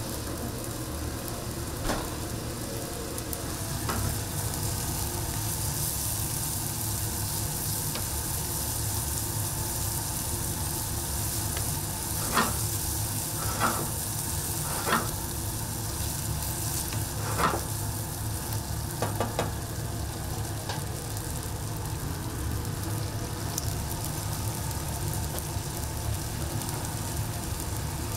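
Bacon and mushroom risotto sizzling and bubbling in a non-stick frying pan over a gas burner as it is stirred with a wooden spatula, over a steady low rumble. A few sharp knocks come in the middle stretch.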